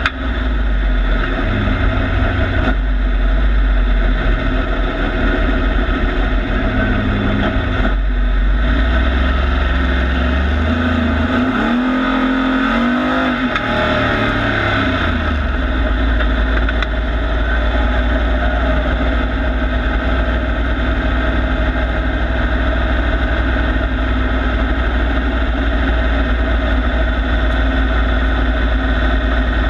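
Engine of a short-track Pro Truck race truck heard from inside the cab while driving a lap, its pitch rising and falling with the throttle for the first half. From about halfway it settles to a steady low engine note.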